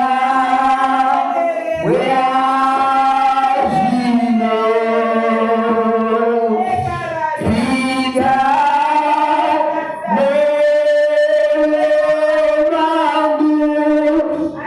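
A church congregation singing together in long held notes, with a fresh phrase starting every couple of seconds.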